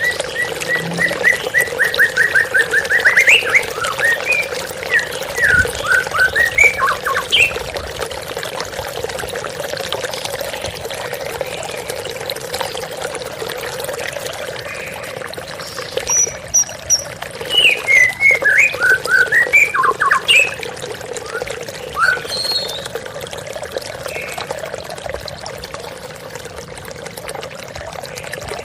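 White-rumped shama (murai batu) singing two spells of quick, varied whistled phrases, the first opening with a fast run of repeated notes, over the steady splashing of a waterfall.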